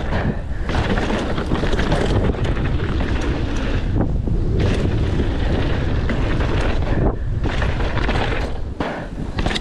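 Wind buffeting the microphone of a mountain bike on a fast descent, with the bike rattling and knocking over bumps in the trail.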